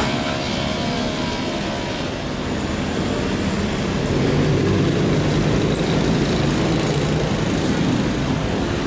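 Steady street traffic noise, with motor vehicle engines running.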